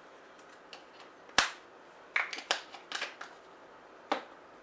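Sharp clicks and taps of small kitchen items on a countertop: metal measuring spoons and a ground-pepper container being handled and set down. One loud click about a second and a half in, a quick run of lighter clicks around two to three seconds, and one more near the end.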